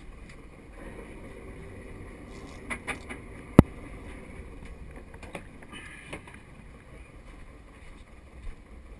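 Steady wash of wind and water around an open fishing boat, with a few light clicks of gear being handled and one sharp knock about three and a half seconds in, the loudest sound.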